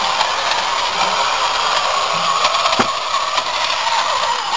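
Battery-powered toy monster truck's small electric motor and gears running with a steady whir, with a few light clicks.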